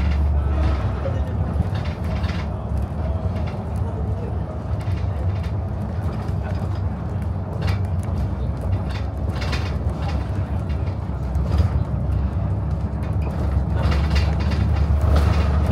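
City bus heard from inside the cabin while under way: a steady low engine and road rumble with occasional short clicks, growing a little louder near the end.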